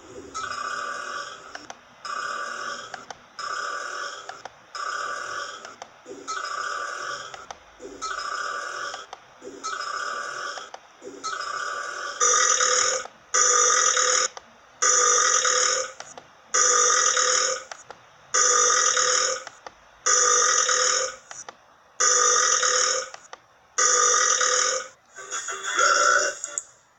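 Burps repeated over and over in an even rhythm, about one every second, each sounding nearly the same. They become much louder about twelve seconds in.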